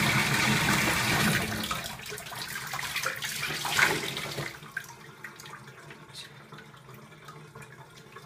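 Bathtub faucet running, water pouring into the tub and over a washcloth held under the stream. The flow fades and is shut off about four seconds in, leaving faint drips and small splashes.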